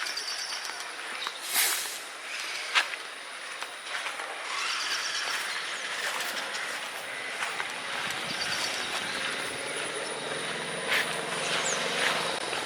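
Steady rushing hiss of wind and approaching rain in the trees. A short, high bird trill repeats about every four seconds, and two sharp knocks come in the first three seconds.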